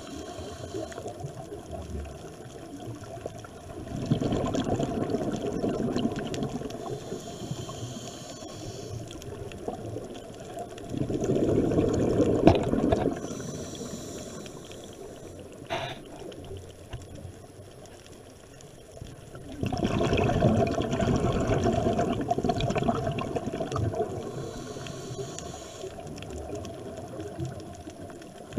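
Scuba diver breathing through a regulator underwater: three long bursts of exhaled bubbles, a few seconds apart, with quieter stretches between.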